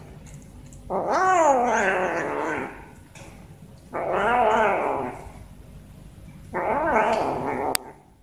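Cat giving three long, drawn-out calls a couple of seconds apart, each rising and then falling in pitch. The third call cuts off suddenly.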